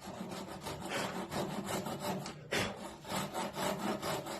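Panel saw cutting through timber by hand, a steady run of back-and-forth rasping strokes about twice a second, one stroke near the middle louder than the rest. The saw is working along a marked line at the start of a cut.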